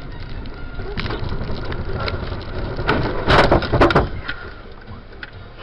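Vehicle crash: a loud crunching impact made of several sharp crashes over about a second, starting a little over three seconds in, over steady road noise.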